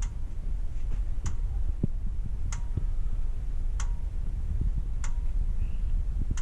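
Evenly spaced sharp ticks, about one every second and a quarter, over a steady low rumble.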